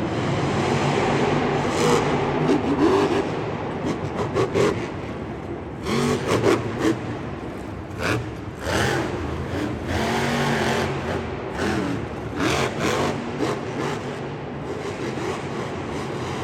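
Vehicle engines revving up and down, broken by repeated sharp bangs and clatter.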